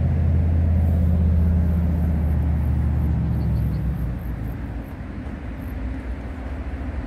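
Low engine rumble from a vehicle, loudest in the first few seconds and fading after about four seconds.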